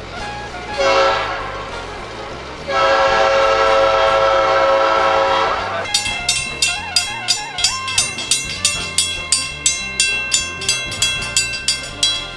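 Diesel locomotive's air horn sounding a short blast and then a long one of about three seconds. This is followed by a railroad crossing signal's bell ringing steadily, about two strikes a second.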